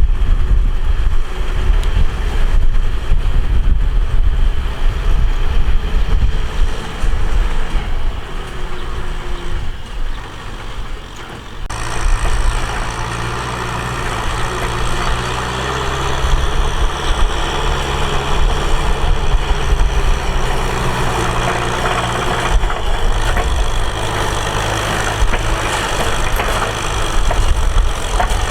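Tractor engine running: first a rough low rumble, then, after an abrupt change about twelve seconds in, a steady hum that holds one pitch, shifting again a few seconds before the end.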